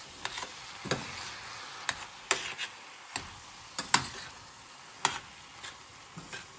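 Metal spoon knocking and scraping against a stainless steel pan while chopped fresh fava beans are stirred, about one sharp knock a second over a faint sizzle.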